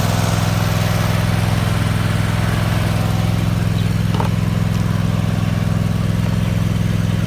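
Small engine idling steadily, an even low hum that does not change in speed.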